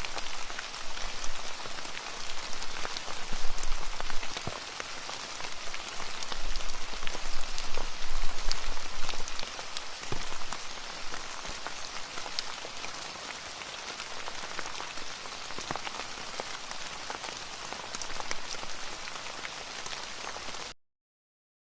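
Wood fire burning in a fireplace, with a steady hiss and dense, irregular crackling and popping. It cuts off suddenly near the end.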